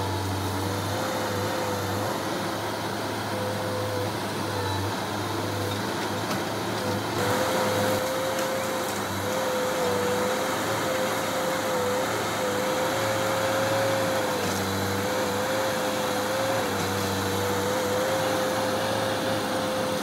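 Diesel engine of heavy earth-moving machinery running steadily under work, with a high whine that wavers slightly in pitch; the noise grows a little louder about seven seconds in.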